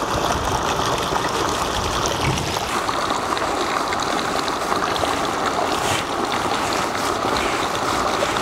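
Salt pouring onto a heap of ground spices on a steel tray, then a plastic-gloved hand rubbing and mixing the dry powders: a steady gritty hiss like trickling water.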